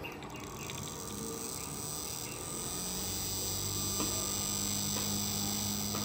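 Homemade reed-switch DC pulse motor running, its magnet-fitted toy wheel spinning past the pulsed coil with a steady low hum and a faint high whine. The hum grows stronger about two and a half seconds in.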